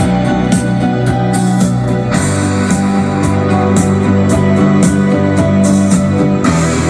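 Rock song with guitar and a steady beat played loudly through an AUKTECH T217 portable Bluetooth speaker.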